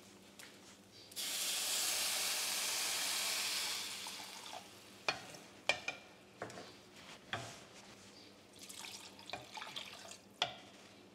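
Water poured from a measuring jug into a hot pot of toasted rice, a loud rushing hiss for about two and a half seconds that fades out. It is followed by a wooden spoon stirring the wet rice and knocking sharply against the pot several times, with a little more water poured near the end.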